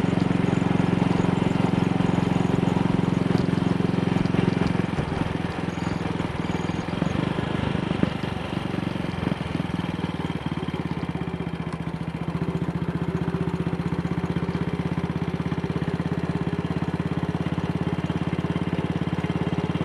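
AJS Model 8 motorcycle engine running steadily on the road. The engine eases off about five seconds in and runs on more quietly at low revs with no misfire. It runs cleanly now that a dislodged carburettor needle clip, which had been making it run rich, has been reset.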